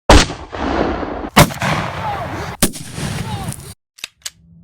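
Three loud gunshots about a second and a quarter apart, each trailing off in a long rumble. The sound then cuts to near silence, with two short clicks near the end.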